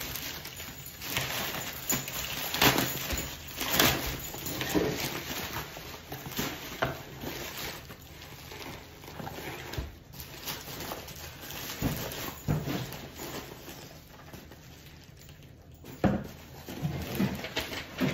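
A plastic poly mailer rustling and crinkling in irregular bursts as hands open it and rummage inside.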